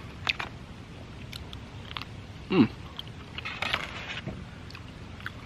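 A man chewing a mouthful of mac and cheese, with faint mouth clicks and smacks, and a short falling 'mm' of approval about halfway through, over a low steady background rumble.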